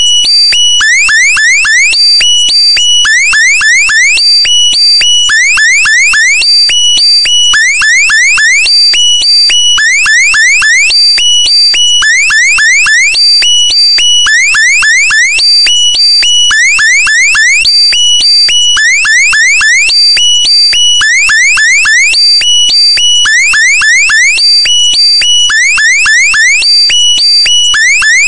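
Loud electronic alarm-like sound effect: a burst of four or five quick rising chirps over steady high beeping tones, repeating about once every 1.2 seconds throughout.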